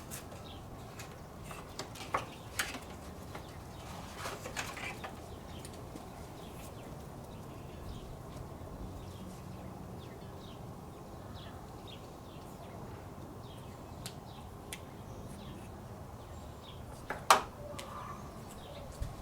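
Wind buffeting the microphone with a steady low rumble, and scattered light clicks and knocks of hands working on the headlight assembly. One sharp click near the end is the loudest.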